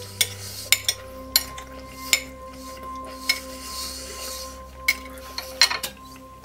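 Knife and fork clinking and scraping on a ceramic plate while cutting into a flaky puff-pastry pie, with a series of sharp, irregular clinks.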